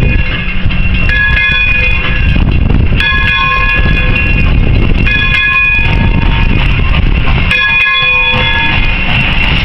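Pere Marquette 1225, a 2-8-4 Berkshire steam locomotive, blowing its steam whistle in a series of blasts about a second long, each holding several tones at once, over a loud low rumble as it approaches.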